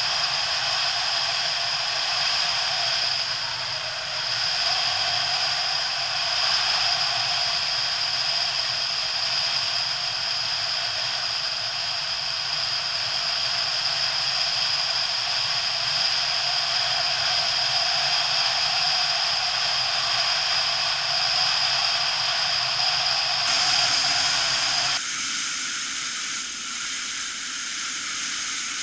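Steady wind rush and road noise from a moving motorcycle, heard through a camera microphone riding on the bike, with a low engine hum beneath the hiss. The sound changes abruptly near the end.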